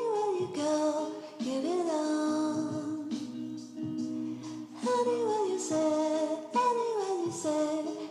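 Background music: a song with a woman singing, her melody gliding downward in repeated phrases over sustained instrumental accompaniment.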